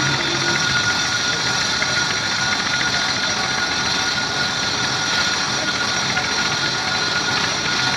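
A workshop machine running steadily, with a fast, even rattle and a thin steady whine.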